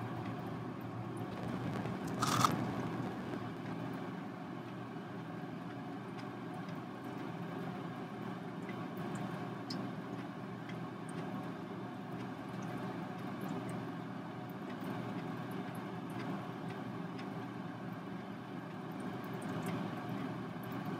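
A steady low hum throughout, with one sharp knock about two and a half seconds in. Faint light ticks come from a metal ball chain being drawn through wet acrylic pour paint.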